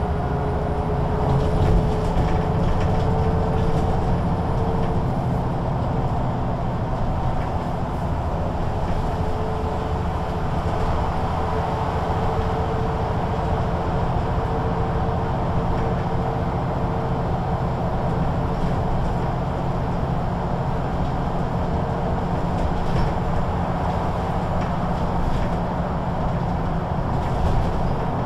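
MAN NG 313 articulated city bus's diesel engine running steadily, a low rumble with a faint steady whine over it.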